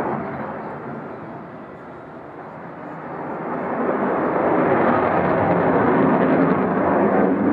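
Jet noise of a Eurofighter Typhoon's two Eurojet EJ200 turbofans during a display flight. It dips about two seconds in, then grows louder from about three seconds in and stays loud.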